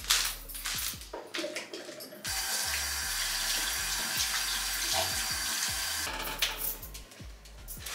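Kitchen tap running into the sink, a steady rush of water that starts about two seconds in and shuts off about four seconds later. Light knocks and clatter of handling come before and after it.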